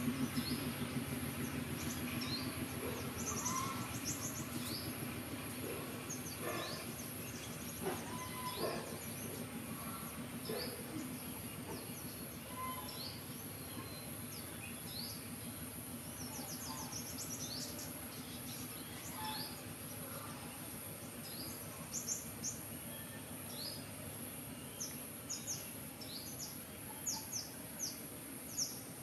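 Small birds chirping in short, high, quick notes, scattered at first and more frequent near the end, over a steady low background noise.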